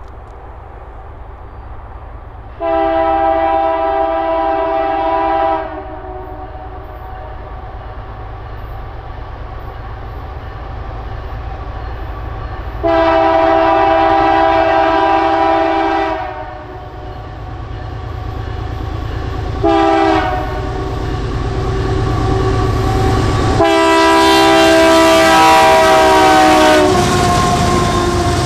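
Canadian Pacific diesel freight locomotive's horn sounding the grade-crossing signal: two long blasts, a short one and a final long one, a multi-note chord over the low rumble of the approaching locomotives. Near the end the lead units pass close by and the engine and wheel noise swells.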